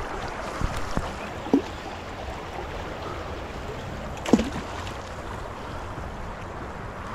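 Creek water running steadily, with a few short splashes and knocks; the loudest comes about four seconds in.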